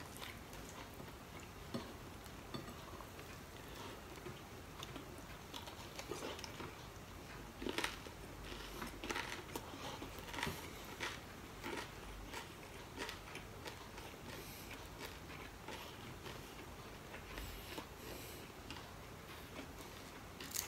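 A man chewing and biting crispy fried dried seafood with rice, eaten by hand: irregular crunches and wet mouth sounds, with scattered small clicks.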